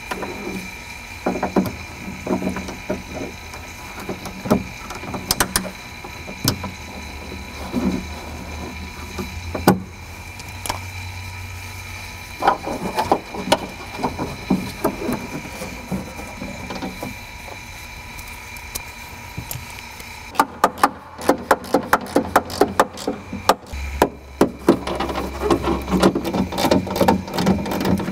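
Hand work inside a Ford Contour's stripped rear door as the new window glass is fastened in: scattered clicks, knocks and rattles of tools and hardware against the door's sheet metal. From about twenty seconds in comes a fast, dense run of clicks.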